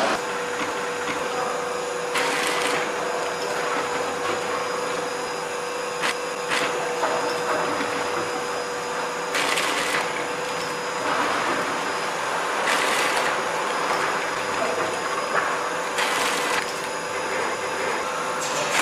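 Automatic vertical form-fill-seal snack packing machine with its bucket conveyor running: a steady mechanical whirr and clatter, with a short hiss about every three seconds. A steady hum runs through the first half and stops about halfway.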